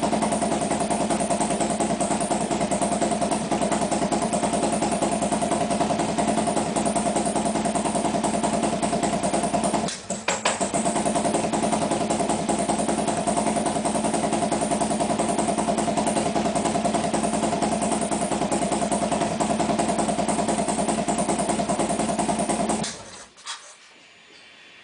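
Harley-Davidson V-twin engine idling steadily during warm-up, with a brief drop about ten seconds in. It stops abruptly near the end.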